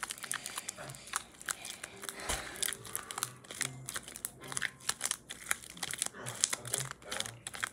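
Sticky white-glue slime being stretched and squeezed between hands, making a fast, irregular run of small sticky clicks and pops.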